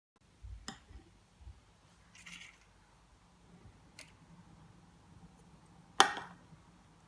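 Kitchen handling sounds: a few light clicks and a short rustle, then one sharp knock with a brief ring about six seconds in, like a utensil or dish set down hard.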